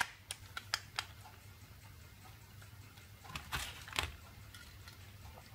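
A few faint clicks and taps from a pen-type brake fluid tester's end cap being pushed back on and the tester being handled, with a small cluster of clicks about three and a half seconds in.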